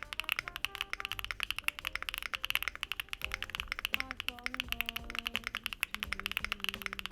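Fast, continuous typing on a mechanical keyboard with HMX Cream Latte linear switches, many keystrokes a second. Jazz music plays underneath.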